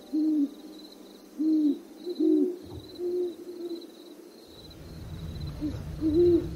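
Several owls hooting: short, rounded hoots, some overlapping, spaced irregularly. Behind them runs a faint, evenly pulsing high chirp, and a low rumble swells in about two-thirds of the way through.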